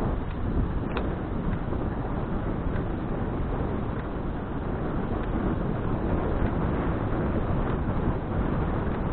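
Steady wind rush and road rumble on an action camera's microphone as it moves along a road, with a few faint clicks about a second in.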